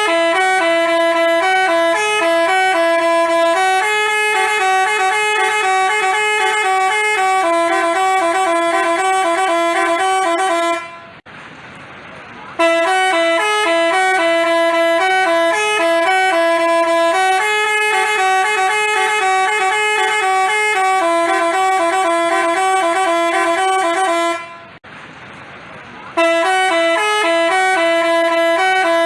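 Telolet basuri multi-tone horn playing a tune of short stepped notes, several horn tones sounding together. It plays in three long phrases of about ten to twelve seconds each, with a short pause of hiss about 11 seconds in and again about 25 seconds in.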